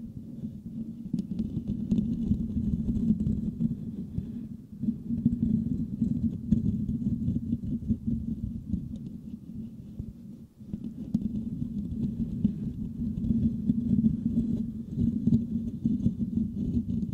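Fingertips scratching and rubbing the metal mesh grille of a Blue Yeti microphone, heard through that microphone as a close, muffled, bass-heavy scratching. The scratching breaks off briefly about ten seconds in, then carries on.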